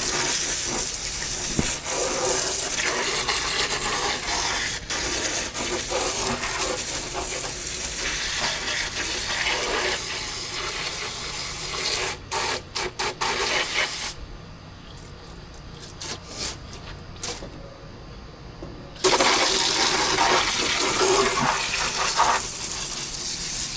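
Water rushing steadily. About halfway through it stops for roughly five seconds, with a few sharp clicks, then starts again.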